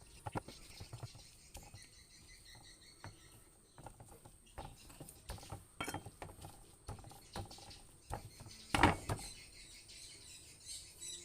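Irregular light taps and clicks of kitchen utensils being handled during preparation of turmeric, with one louder knock about nine seconds in.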